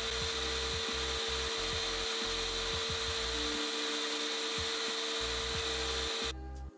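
Vintage Craftsman benchtop jointer running: a steady motor-and-cutterhead whine over an even hiss, with a few low knocks, cutting off suddenly near the end.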